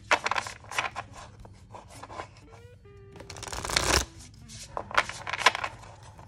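A deck of Angels and Ancestors oracle cards being shuffled by hand. Quick flicks and slaps of cards come first, then a longer swishing shuffle that builds and stops about four seconds in, then more quick flicks.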